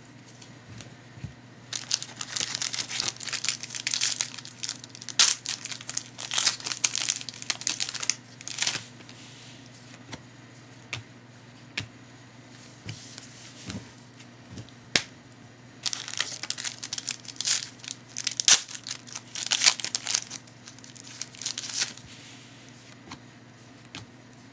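Foil trading-card wrappers being torn open and crinkled by hand, in two long bouts with scattered crackles between, as fresh packs are opened. A steady low hum runs underneath.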